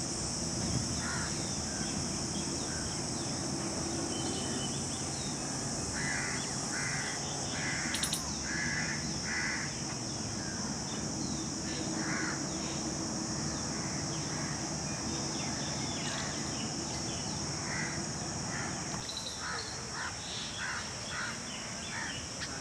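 Jungle babblers giving harsh, grating calls in short runs of repeated notes, over a steady high drone of insects.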